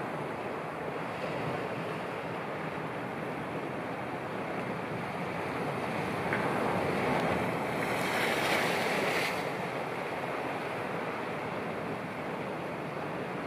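Sea waves washing in, a steady surf hiss with wind on the microphone; one wave swells and breaks louder about six to nine seconds in.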